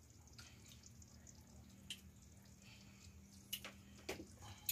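Near silence: a faint steady hum with a few soft clicks.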